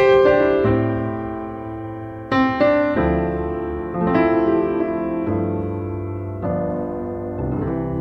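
Piano music: slow chords struck every one to two seconds, each left to ring and fade.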